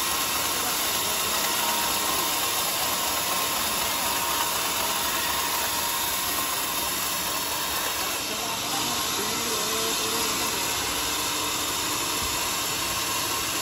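Band sawmill running and cutting through a teak beam: a steady hiss of the blade in the wood over the machine's running noise.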